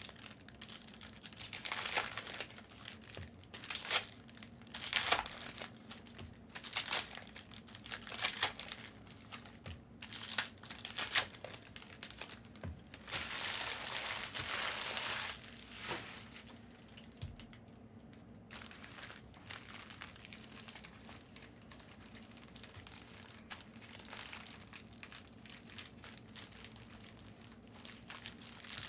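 Foil trading-card pack wrappers crinkling and tearing open as cards are handled, in a run of short sharp crackles. About halfway through there is a longer stretch of continuous crinkling, and the crackles get fainter and sparser after it.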